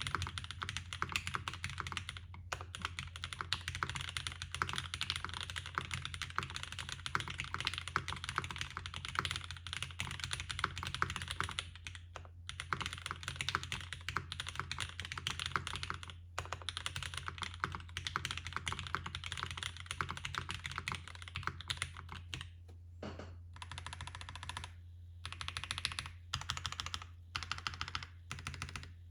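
Fast, continuous typing on a Mode 80 mechanical keyboard with lubed Mode Reflex linear switches on an FR4 plate and blank ABS Cherry-profile keycaps. The stream of keystrokes breaks off in short pauses a few times, with a steady low hum underneath.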